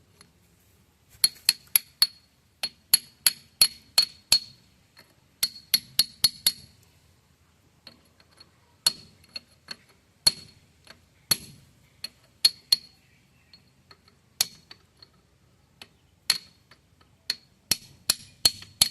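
Hammer striking a cold chisel on the steel of a tractor's half-shaft assembly: sharp ringing metallic clinks. They come in quick runs of several blows during the first six seconds or so, then as more scattered single blows.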